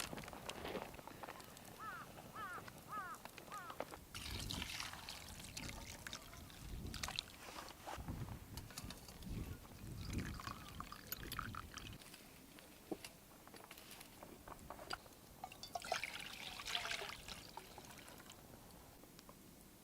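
Water trickling and being poured, mixed with uneven handling noises and low thuds. A quick run of about half a dozen high chirps comes about two seconds in.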